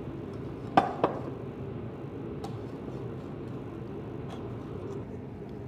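Wire whisk beating pancake batter in a glass bowl, the wires ticking against the glass, with two sharp clinks close together about a second in.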